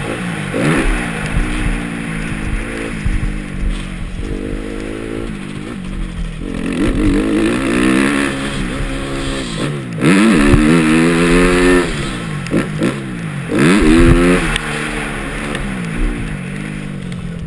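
Motocross bike engine revving hard up and down as the rider works the throttle and gears, its pitch climbing and dropping again and again, with several sudden throttle chops.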